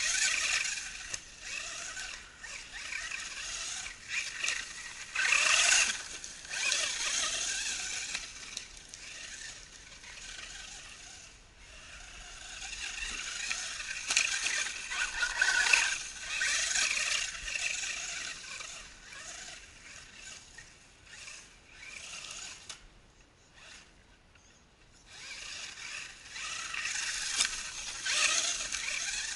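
FS Racing Marauder RC monster truck's brushed electric motor and gears whining in surges as it is driven on and off the throttle, running on a 3S LiPo. The sound drops away almost entirely for about two seconds about three quarters through, then picks up again.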